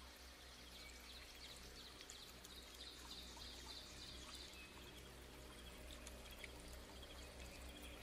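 Faint, steady water-like rushing ambience, with a short run of rapid high chirps through the first half.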